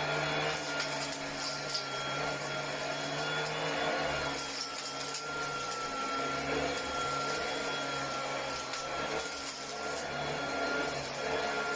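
Cordless commercial vacuum cleaner running at full speed: a steady high motor whine over the whir of its spinning brush bar and the rush of air, with a few faint knocks as it is worked.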